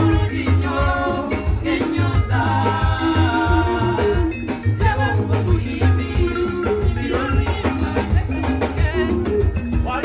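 Adungu music: plucked Ugandan arched harps playing a rhythmic piece over a steady, pulsing bass line, with a voice singing along.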